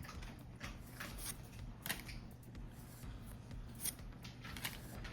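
Fusion World trading cards being flipped and slid against each other in the hand: faint rustling with a few short, sharp card snaps, the loudest about two seconds in and again near four seconds.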